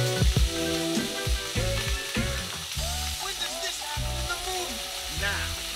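Raw meat sizzling and frying in a stainless-steel frying pan as pieces are dropped in and stirred, under background music.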